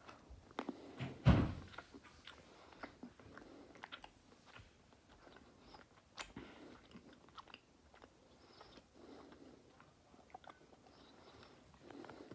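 Person biting off a piece of a dark chocolate bar close to the microphone, loudest about a second in, then chewing it with soft, scattered mouth clicks.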